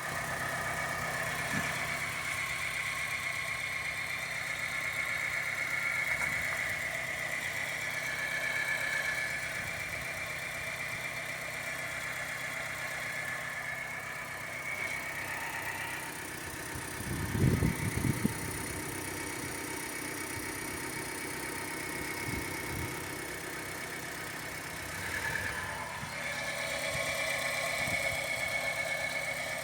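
Car engine idling with a steady high whine from the turbocharger. The whine drops out for about ten seconds in the middle, and a few knocks sound while it is gone. The owner takes this abnormal turbo noise for a sign that the turbo is finished.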